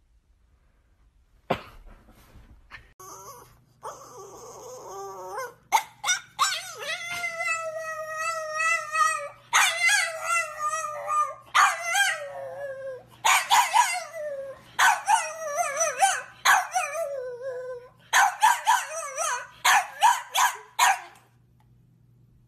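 French bulldog howling, with long wavering howls giving way to shorter, falling yelps and barks. A single sharp knock comes about a second and a half in.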